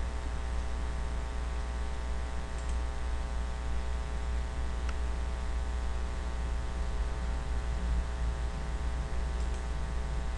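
Steady electrical hum from the recording setup, with a few faint mouse clicks.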